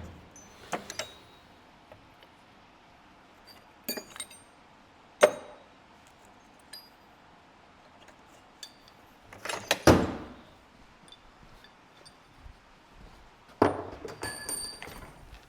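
Irregular metal-on-metal knocks and clinks from tools and parts being handled and struck, with a few sharp strikes. About ten seconds in comes a loud cluster of hits, and near the end several clinks with a brief high metallic ring.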